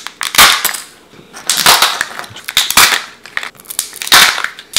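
Kinder Joy egg being unwrapped and opened: its foil wrapper crinkling and tearing and the plastic capsule snapping open, in several short, sharp bursts.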